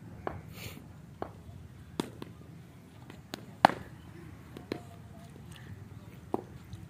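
Sharp cracks and knocks of a leather cricket ball on a willow bat and on the pitch, about seven scattered impacts, the loudest a little past halfway through.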